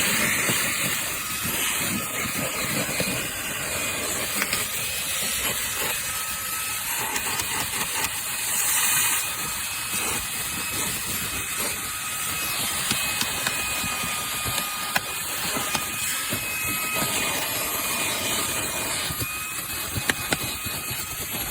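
A steady hissing rush with a faint high whine that drops out and comes back a few times.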